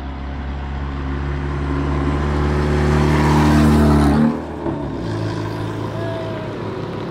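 Bugatti Centodieci replica car, fitted with a custom four-way exhaust, driving past close by. Its engine note grows louder, then drops in pitch and falls away about four seconds in as it passes.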